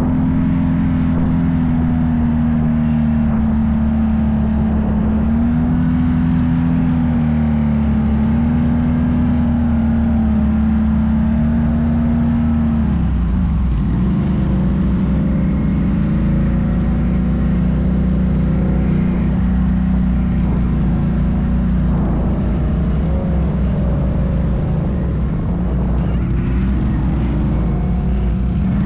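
Off-road vehicle engine running steadily while riding. Its pitch wavers slightly, then drops and settles lower about halfway through.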